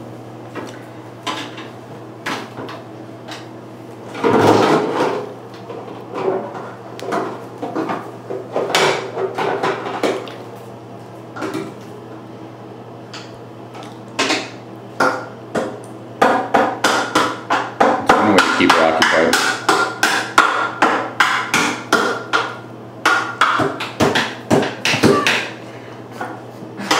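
A toddler drumming with a plastic toy shovel in an empty bathtub: sharp irregular knocks, scattered at first, then a fast run of several a second through the second half.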